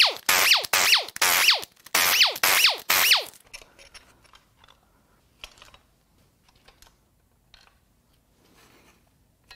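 Power driver spinning out the main bearing cap bolts of a BMW B38 three-cylinder engine in about eight quick short runs, each with a whine that falls in pitch, stopping about three and a half seconds in. After that, faint clicks and metal handling as the crankshaft and caps come out.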